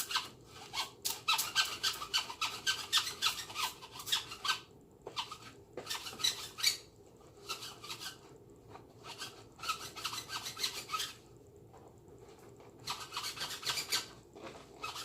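Lint roller's sticky sheet rolled back and forth over a dusty fitted hat, a rapid rasping in four runs of strokes with short pauses between them.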